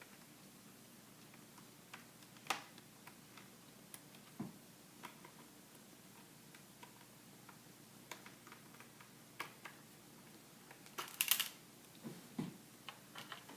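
Scattered small clicks and taps of a Phillips screwdriver working screws out of a laptop's plastic screen bezel, with a louder cluster of clicks near the end.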